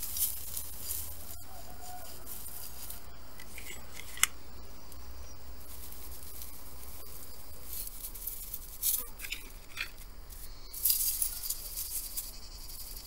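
Dry straw mulch rustling and crackling as hands and a small trowel dig into it and pack it back around a seedling, with irregular scratches that grow busier and louder in the second half. A single sharp tick about four seconds in.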